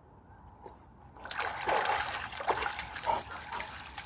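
Water splashing and trickling, starting about a second in.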